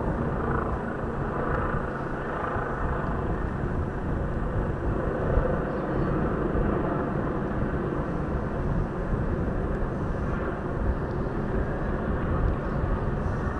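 Medical helicopter coming in to land: a loud, steady wash of rotor and engine noise.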